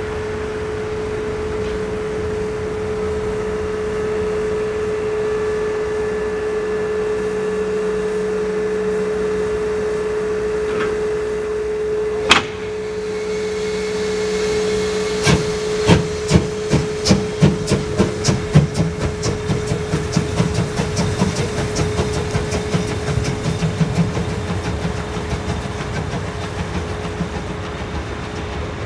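Narrow-gauge steam locomotive standing, with a steady tone under a background hiss. A single sharp knock comes about 12 seconds in. A few seconds later the locomotive starts the train, its exhaust chuffs beginning slowly and quickening as it gets under way.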